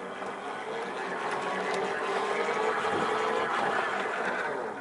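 Commercial steel spiral bevel gearbox of a pedal boat's 8:1 step-up drive, cranked by hand. It runs with a steady, quiet whir and eases off near the end.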